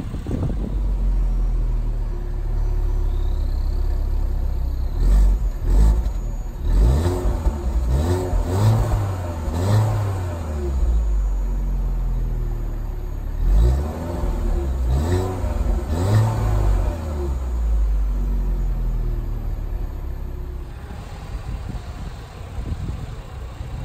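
2018 Opel Corsa GSi's turbocharged 1.4-litre 16-valve four-cylinder engine, heard through its exhaust, idling and revved in a series of short blips: a cluster of quick revs a few seconds in, a second cluster about halfway through, then back to a steady idle.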